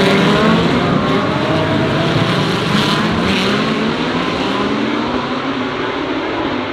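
A pack of GT3 race cars accelerating hard on a restart, several engines at once, their pitches rising and dropping through gear changes. The sound eases off a little over the last couple of seconds.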